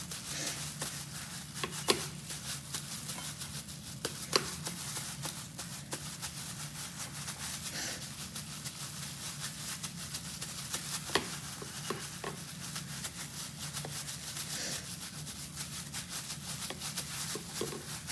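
Plastic-bag-covered hands pressing and smoothing raw spiced minced beef flat in a non-stick frying pan: a steady crinkly rustle and squish of plastic on wet mince, with a few sharp clicks, over a low steady hum.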